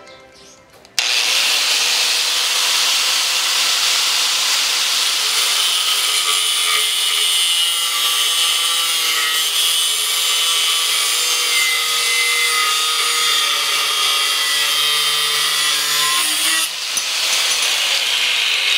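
Mitsushi electric angle grinder with an abrasive cut-off disc cutting through a rusty steel rebar: a loud, steady grinding that starts about a second in. Near the end it dips as the disc breaks through the bar and the grinder runs on.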